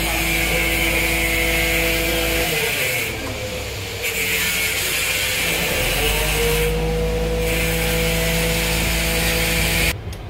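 Truck-mounted hydraulic crane running under load with a steady machine whine and hiss while it hoists a heavy engine. The pitch sags and the sound eases about two and a half seconds in, then rises back to a steady whine around six seconds.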